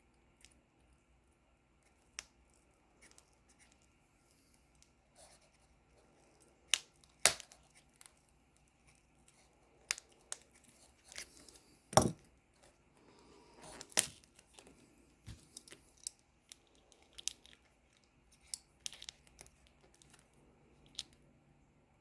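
Adhesive tape under a laptop screen being peeled and pulled loose in short tearing and crackling bursts, with scattered clicks and a few sharp snaps.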